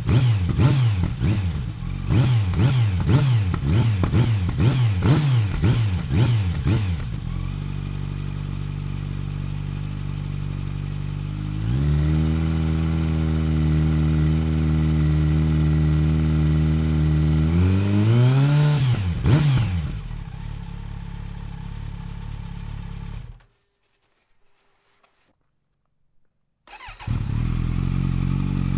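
Kawasaki Z900's inline-four running through a Bodis GPC RS2 aftermarket exhaust. It is blipped in quick revs, about one and a half a second, then drops to idle. It is held steady at higher revs for several seconds, revved up and back down once, and settles to idle. The sound cuts out for about three seconds, then the idle returns.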